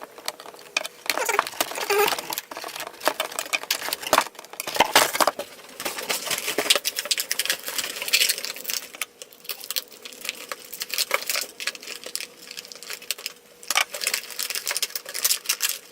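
Toy packaging being pulled open: plastic and cardboard crinkling, with many quick, irregular clicks and rustles.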